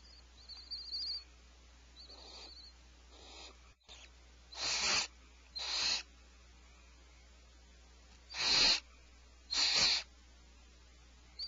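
Barn owls calling: a few short wavering, twittering calls, then four harsh hissing screeches of about half a second each, in two pairs.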